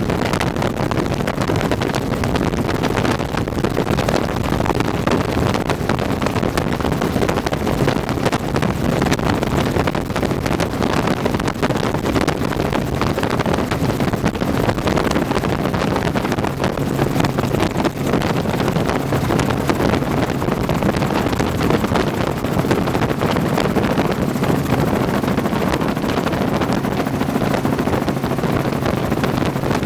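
Helicopter engine and rotor noise running steadily in flight.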